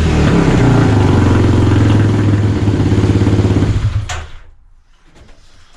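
Kawasaki KLX300R single-cylinder four-stroke engine running through a freshly installed Pro Circuit T6 full exhaust, then shutting off and dying away about four seconds in.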